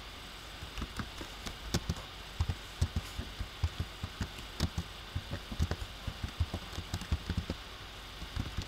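Computer keyboard being typed on: irregular keystroke clicks, several a second, beginning about a second in, over a steady hiss.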